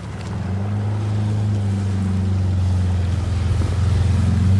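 Jet ski engine running steadily as the craft heads in, growing louder throughout, over the hiss of water and spray.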